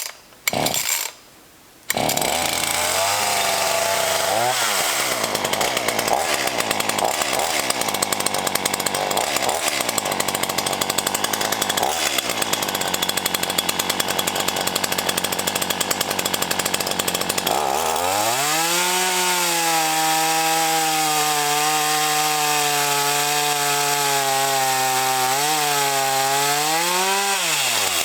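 Black Max 16-inch chainsaw running at high revs, starting with two short bursts. It then cuts into a small tree trunk, its pitch dipping under load and recovering several times. After about 18 seconds it settles into a steady, clear high-revving note with a brief dip late on.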